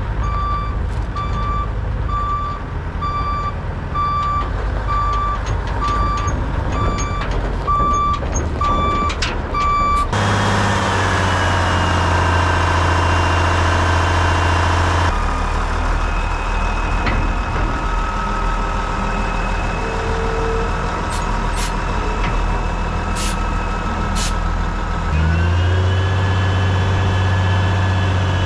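Roll-off truck backing up, its reversing alarm beeping about once a second. Then its engine revs up and holds steady for about five seconds, twice, as it drops the dumpster, with a few clanks in between.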